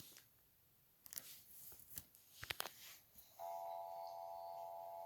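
Near silence with a few faint clicks, then about three and a half seconds in a faint, steady electronic tone starts: several notes held together as one chord.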